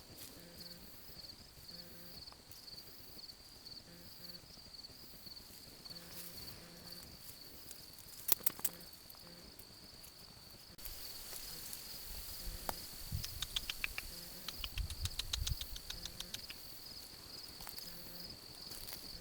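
Crickets chirring steadily in a fast, even pulsing trill. A couple of sharp clicks come about eight seconds in, and a low rumble with rapid ticking follows a few seconds later.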